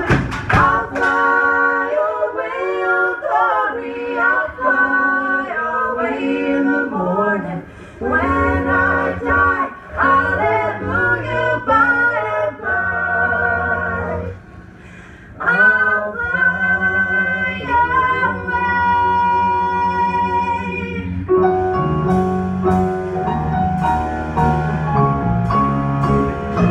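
Live band music: a woman sings lead, with men's backing voices joining in, over bass guitar and keyboards. The singing drops out briefly about halfway through, comes back with a long held note, and then stops, leaving the band playing on alone for the last few seconds.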